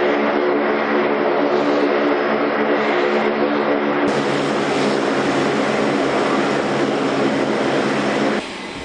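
C-130 Hercules transport taxiing, its four turboprop engines and propellers giving a loud, steady, many-toned drone over rushing noise. The level drops abruptly shortly before the end.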